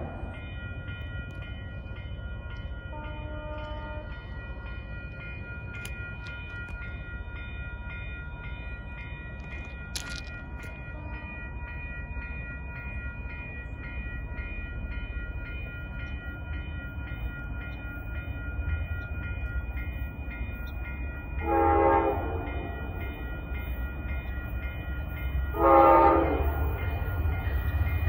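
An approaching train: a low rumble slowly growing louder, then the locomotive's horn sounding two long blasts about four seconds apart near the end. A faint steady high ringing sits underneath.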